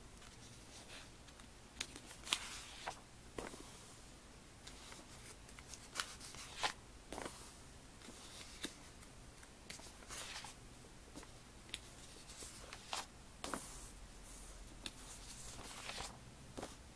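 Glossy catalog pages being turned by hand: irregular paper rustles and swishes with sharp snaps as each page is lifted and laid over, spaced a second or a few seconds apart.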